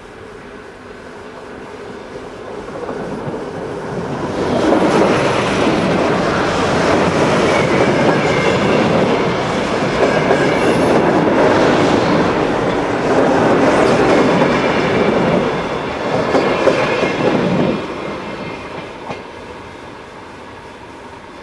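VR red-and-white electric commuter train passing close on a curve, its wheels clattering over the rails. The sound builds up, stays loud for about thirteen seconds, drops off sharply, then fades as the train moves away.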